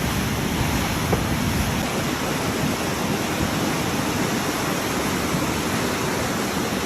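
Floodwater rushing: a steady, even noise without breaks, heaviest in the low end.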